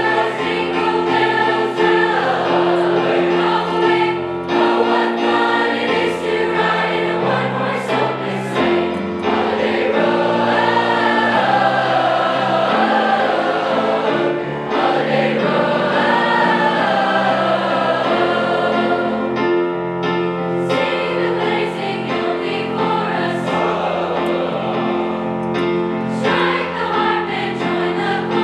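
High school choir singing a Christmas song over an accompaniment of sustained chords.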